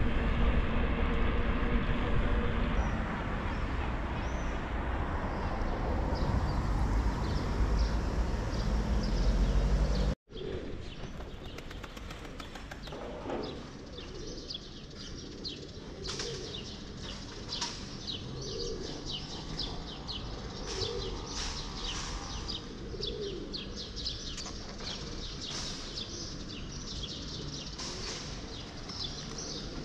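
A steady low rumble for about ten seconds, then, after an abrupt cut, many small birds chirping, with pigeons cooing now and then.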